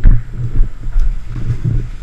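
Low, dull thumps about twice a second, uneven, with wind buffeting the microphone: a player's footsteps and gear jolting a body-worn camera as he walks.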